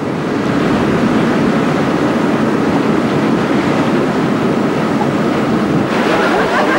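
Steady rush of wind and water aboard a ship under way through choppy sea. About six seconds in the sound turns brighter and splashier, with the bow wave foaming along the hull.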